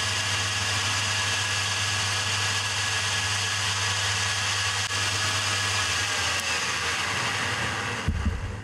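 Used manual milling-drilling machine running with its spindle and drill chuck spinning freely under no load: a steady electric motor hum and whir. It is switched off about eight seconds in and begins to wind down. The spindle is running true, showing only about 0.002 of runout on the dial gauge.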